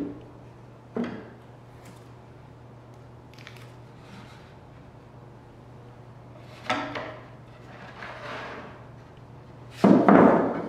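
Carved cherry wood pieces knocking and sliding against each other and the saw table as they are laid out and lined up: a few short knocks, then a louder, longer wooden clatter near the end as a 2x4 block is set down against them.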